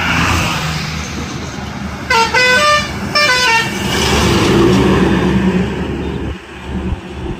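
Heavy goods truck passing close by with engine and tyre noise. About two seconds in, a multi-tone musical truck horn plays a short stepping tune in two phrases.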